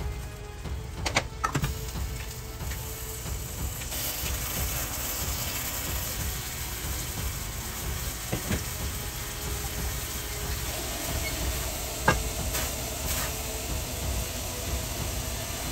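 A stainless saucepan and a spoon clinking and knocking against cookware a few times, the sharpest knock about twelve seconds in, over a steady hiss that grows brighter about four seconds in.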